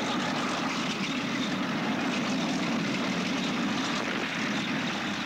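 Armoured vehicle engine running steadily on an old film soundtrack: a continuous, even noise with no distinct shots or blasts.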